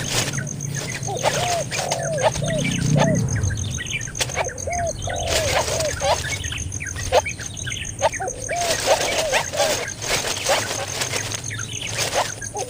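Baby bird calling in runs of short squeaky chirps that rise and fall in pitch, with bursts of rustling from handling or wing-flapping.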